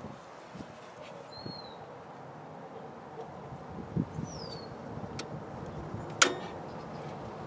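A circuit breaker switch for the pool pump snaps on with one sharp click about six seconds in. Two short bird chirps sound earlier over faint outdoor background.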